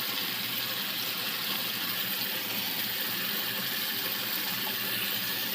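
Chicken cooking in a pan with a steady, even sizzle.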